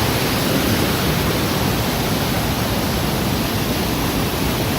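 Rain-swollen waterfall: a loud, steady rush of falling water, even throughout.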